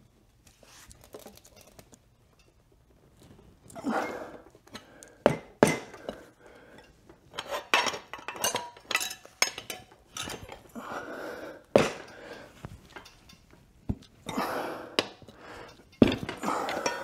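Metal tire levers clinking and knocking against the wheel rim, with rubbing and scraping as a dirt-bike rear tire is levered over the rim by hand. The clinks come at irregular intervals.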